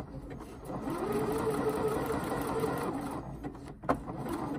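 Janome 1030MX computerized sewing machine stitching the second side of a four-step buttonhole: the motor speeds up about a second in, runs at a steady pitch and slows to a stop about three seconds in. A sharp click follows near the end.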